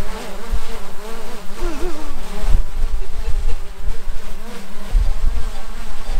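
Quadcopter drone hovering close by, its propellers whining with the pitch wavering up and down as the motors work against strong wind. Gusts of wind rumble on the microphone underneath.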